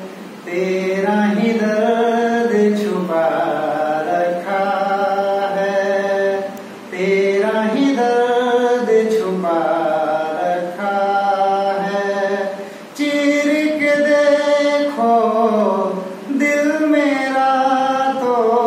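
A man singing a slow Hindi film song unaccompanied, holding long notes in phrases of a few seconds with short pauses for breath.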